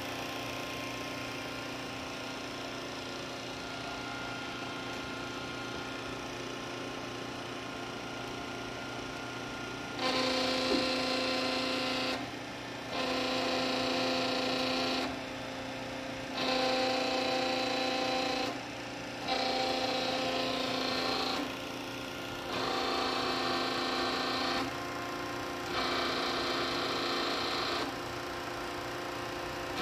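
Hydraulic system running a freshly rebuilt Howa HH36C 8 hydraulic rotary actuator under test, with a steady hum. About a third of the way in, a louder pitched whine begins. It comes six times, each about two seconds long, with roughly a second of the plain hum between, as the actuator is cycled under pressure.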